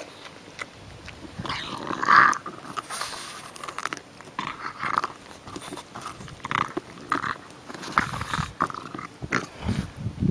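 Pug eating raw pumpkin with its face pressed into the flesh: irregular bursts of noisy breathing, chewing and biting as it paws at the pumpkin, with a few sharper clicks and low thuds near the end.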